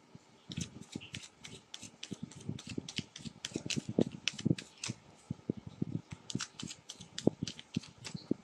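A deck of tarot cards being shuffled by hand: a quick, irregular run of card flicks and taps, several a second.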